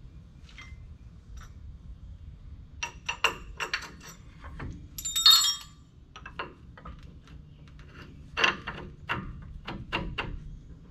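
Metal brake parts clicking and clinking as pads and a retaining clip are worked by hand into the front disc brake caliper of a 1988 Ford F700 dump truck, with a bright metallic jangle about five seconds in.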